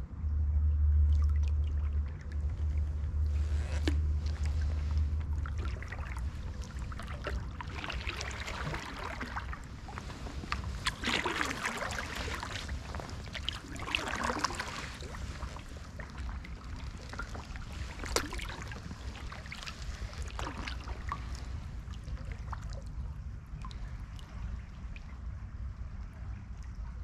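Kayak paddle strokes in flood water: splashes and trickling drips off the paddle blades, busiest in the middle and easing off toward the end. A low rumble sits under the first five seconds or so.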